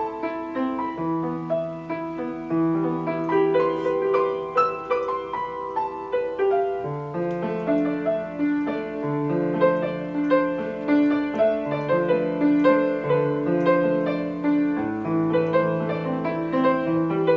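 Steinway piano playing a continuous piece of classical-style music, a melody moving over held bass notes.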